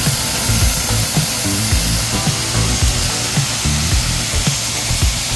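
Homemade scrap-built jet engine being spun up by an electric drill, a steady loud rush of air and burning fuel as flame spurts from its exhaust. Background music with a beat plays under it.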